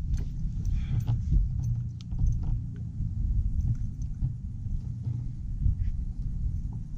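Steady low wind rumble buffeting the microphone on an open boat deck, with a few light knocks and taps scattered through it.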